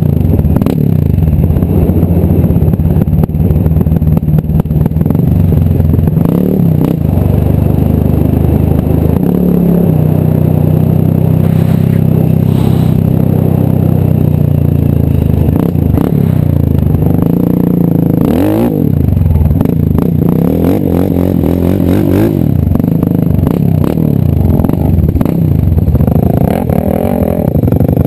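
Yamaha Raptor ATV's single-cylinder engine running under throttle, its pitch rising and falling again and again as the rider revs up and backs off, with one sharp rev-up about two-thirds of the way through.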